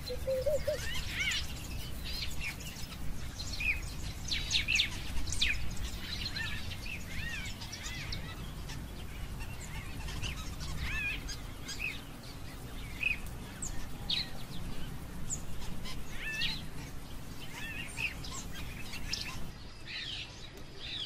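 Many short, high chirping calls, scattered and overlapping, over a steady low rumble.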